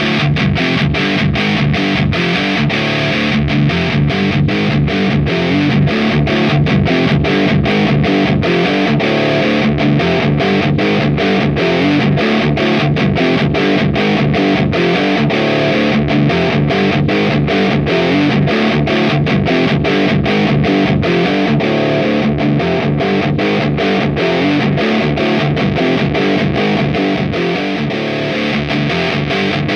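Distorted electric guitar through the AMT Bricks R/S Lead 12AX7 tube preamp, playing a high-gain metal riff. The riff is tight and stop-start, with many short breaks several times a second.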